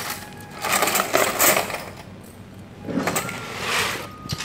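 Bunches of bangles clinking and jingling as they are handled and lifted, in two bouts of about a second each.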